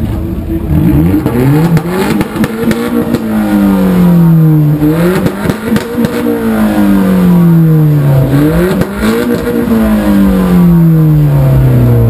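Opel Corsa OPC's turbocharged 1.6-litre four-cylinder engine revved loudly through a stainless steel exhaust at a standstill. The revs climb sharply about a second in, again near the middle and again about three quarters through, sinking slowly back down after each.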